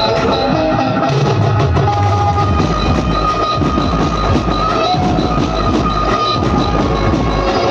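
A dhumal band party playing loud music, drums beating under a held melody line.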